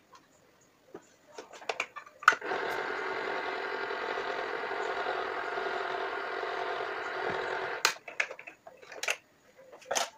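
Electric can opener running steadily for about five and a half seconds as it cuts round the lid of a tin can. Short clicks and knocks come before it starts, as the can is fitted and the lever pressed, and again after it stops, as the can comes off.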